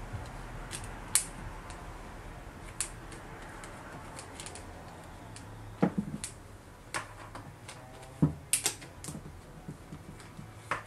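Irregular clicks and light knocks of hands working a SHOEI Z-7 motorcycle helmet's liner and fittings, with small plastic parts set down on a wooden table; they come thicker near the end.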